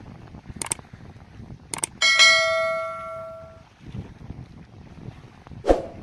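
Two sharp click sound effects, then a single bell ding that rings out and fades over about a second and a half: the notification-bell sound of a subscribe-button animation. Low wind rumble on the microphone runs underneath, and a thump comes near the end.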